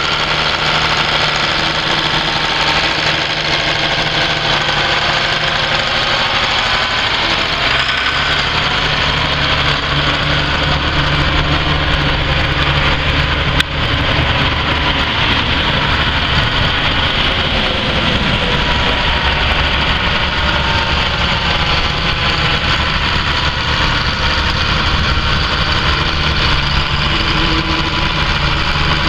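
Allis-Chalmers 7080 tractor's six-cylinder turbo diesel running steadily, at idle at first; about eight seconds in its engine note shifts as the tractor moves off and drives away.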